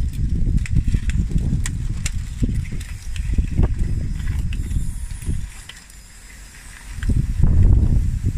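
Radio-controlled D6T bulldozer on 3D-printed plastic tracks crawling through mud and pushing a rock, with a low rumble and scattered clicks. The rumble drops away for about a second and a half past the middle, then comes back louder.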